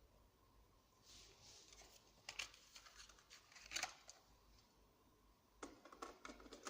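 Faint handling sounds from a Sony CFS-3300L cassette boombox being readied to play a tape: a soft rustle, a few sharp clicks, then a cluster of quick clicks near the end.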